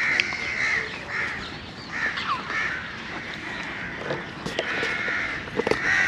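Crows cawing repeatedly, a string of harsh calls throughout.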